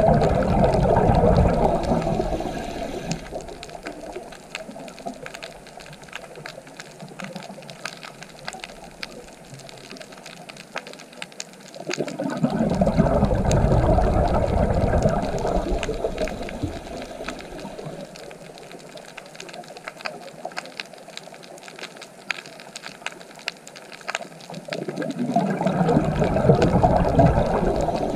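Rushing water that swells up and dies away three times, about every thirteen seconds, over a steady hiss with faint scattered clicks.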